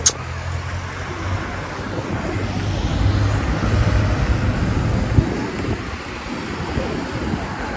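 Road traffic on a busy city street: cars passing, a steady hum with a low rumble that builds in the middle and then eases off. A single short click about five seconds in.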